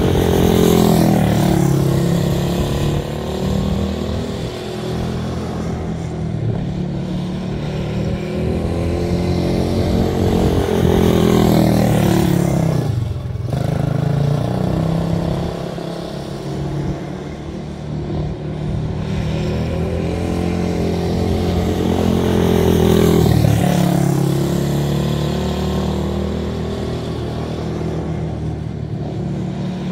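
Small race car's single-cylinder Briggs & Stratton Animal engine running practice laps, its pitch rising and falling over and over as it speeds up and slows, with two deep drops in pitch partway through.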